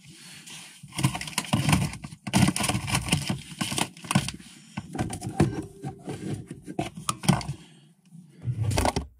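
Food packets and a plastic tub being taken out of a fridge: plastic packaging crinkling and rustling, with irregular knocks and clatters against the shelves.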